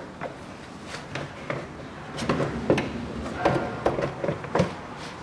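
Scattered clicks and knocks of parts being handled by hand, with no engine running. They come more often and louder from about two seconds in.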